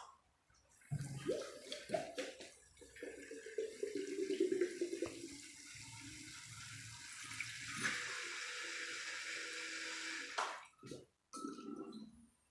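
Custom PC water-cooling pump starting up and pushing distilled water through the loop, the water gurgling and splashing as air is purged from the freshly filled tubing and reservoir. The flow settles into a steady rush for a few seconds, then stops about two seconds before the end.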